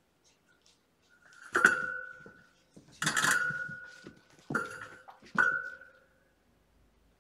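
A ringing metal object knocked four times, each clank leaving a clear ringing tone that fades within about a second.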